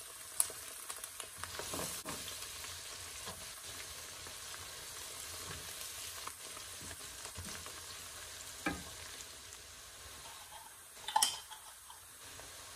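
Sliced onions, green chillies and fresh coriander sizzling in hot oil as a wooden spatula stirs them around a nonstick pan. A steady frying hiss with scattered small clicks and a few sharp knocks, the loudest near the end.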